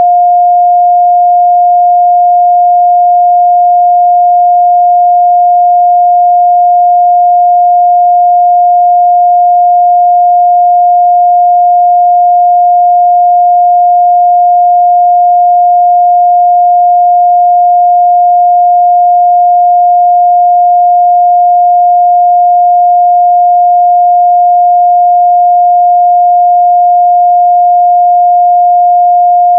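A 708 Hz sine-wave test tone, held steady and loud at one pitch, used to check a speaker's or headphones' midrange response.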